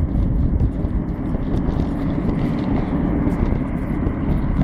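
Steady rumbling of kick scooter and trailer wheels rolling over tarmac while being pulled along at a run.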